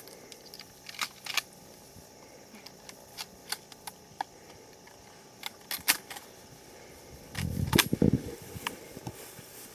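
Scattered sharp clicks and light rustles from a handheld camera being carried through tall grass, with a short low rumble on the microphone about seven and a half seconds in.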